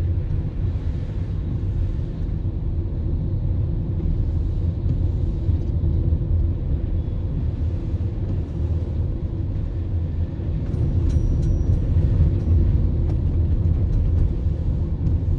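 Steady low rumble of a car driving on a wet road, heard from inside the cabin: engine and tyre noise. A few faint clicks come about eleven seconds in.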